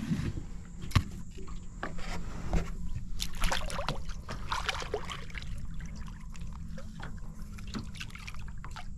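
Water splashing and trickling against the side of a boat as a flathead is held in the water by hand and released, with a steady low hum underneath.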